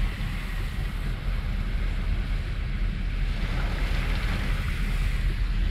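Steady rush of heavy rain and floodwater running down a street, with wind buffeting the microphone in a low rumble.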